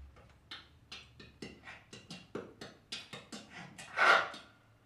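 A man's voice making a quick run of short, breathy, wordless vocal sounds, about four a second, in a sound-poetry performance into a microphone. About four seconds in comes one louder, longer vocal burst.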